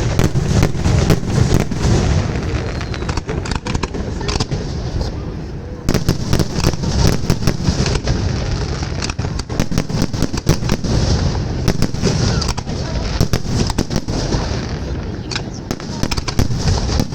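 Fireworks display: rapid volleys of sharp bangs and crackles over a continuous low rumble, with the bangs coming thickest in several clusters.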